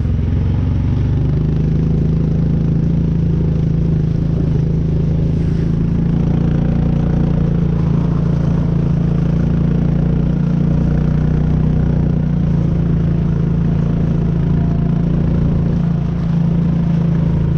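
ATV engine running at a steady speed, a constant drone that holds one pitch throughout.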